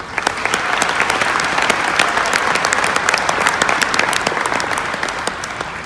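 Audience applauding, starting suddenly as a dense patter of many hands clapping.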